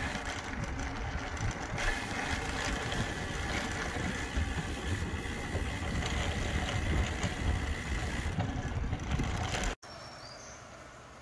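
Low, uneven wind and road noise from moving along a paved road. A little before the end it drops abruptly to a much quieter steady hiss, with one brief high chirp.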